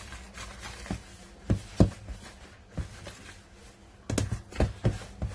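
Wire whisk stirring a dry flour mixture in a metal mixing bowl, scraping with irregular knocks against the bowl's side, the sharpest a little under two seconds in and several in quick succession near the end.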